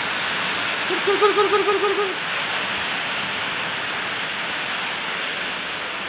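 Steady hiss of rain. About a second in comes a brief run of about eight quick, low, evenly spaced pulsed sounds lasting just over a second.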